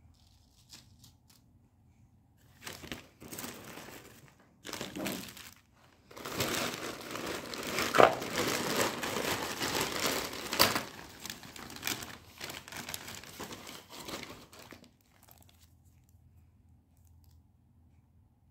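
Packaging crinkling and being torn open by hand, in irregular rustling bursts that start a couple of seconds in, are loudest in the middle with a few sharp crackles, and die away a few seconds before the end.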